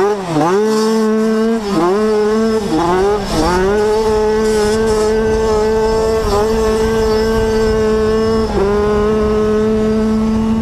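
85cc dirt bike engine at high revs, heard on board. The pitch drops and climbs back several times in the first few seconds, as the throttle is eased and opened again through the turn. It then holds high and steady, with two short dips later on.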